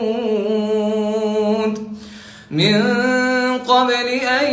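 Melodic Quran recitation: a solo unaccompanied voice holding long drawn-out notes, stopping for a breath about two seconds in, then resuming with a note that rises and is held.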